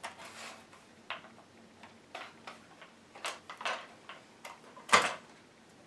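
Plastic phonograph-kit parts being handled and fitted together: scattered light clicks and knocks, with one louder knock about five seconds in as the plastic base assembly is set down on the table.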